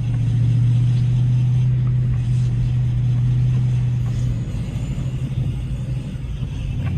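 2021 Dodge Charger Scat Pack's 6.4-litre HEMI V8 running while the car is driven, a steady low drone that eases off about four and a half seconds in.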